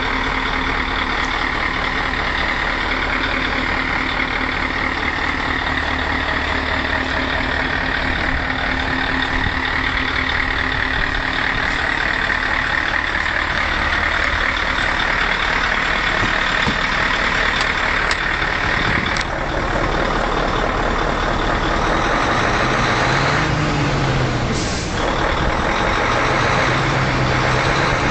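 V8 engine running steadily, with a short hiss near the end.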